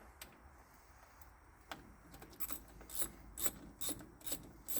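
Hand-tool work on tractor battery cables: a row of short, sharp clicks, about two a second, starting a couple of seconds in.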